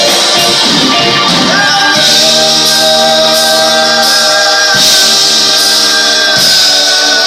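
Live rock band playing with sung vocals. From about two seconds in, the voices hold long notes over a steady, high, shaking percussion rhythm.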